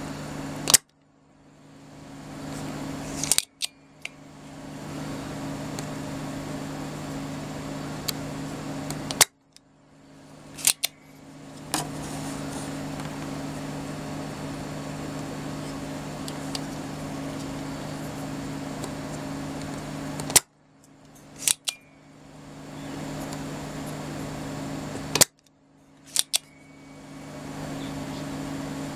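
Spring-loaded desoldering pump (solder sucker) firing four times, a few seconds apart, each a sharp loud snap. The snaps are followed by one or two fainter clicks as the plunger is pushed down and latched again. The pump is sucking molten solder off relay pins to free the relays, over a steady low hum.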